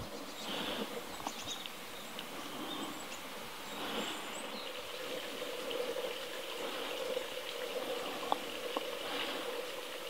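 Steady outdoor background noise, like running water, with a few faint, short, high-pitched chirps from small wild birds.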